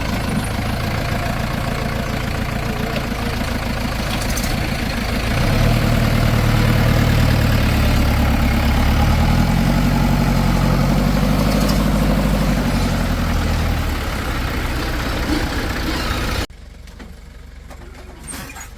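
Heavy diesel engine running steadily, then revving up about five seconds in, its pitch rising and falling as it works under load. Near the end it cuts off suddenly to a much quieter engine sound.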